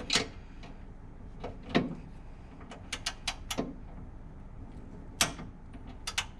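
Ratcheting torque wrench tightening the differential-mount nuts to a set torque: a scattering of sharp metallic clicks, the loudest about two seconds in and again just after five seconds, with three quick ones around three seconds.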